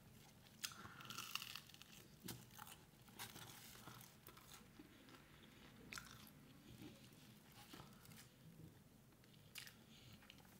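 Faint biting and chewing of crunchy food, with scattered crisp crunches, most of them in the first few seconds.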